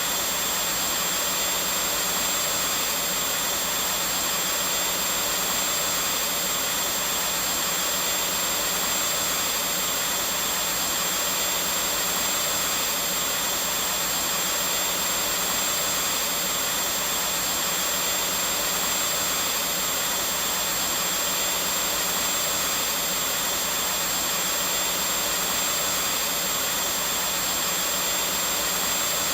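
Vacuum cleaner running steadily: an even rushing whoosh of air with a thin high whine and a low hum, unchanging throughout.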